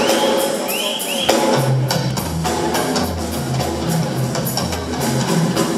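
Live drum kit solo: fast, dense strokes on drums and cymbals, with a deep, pulsing low pattern setting in about a second and a half in.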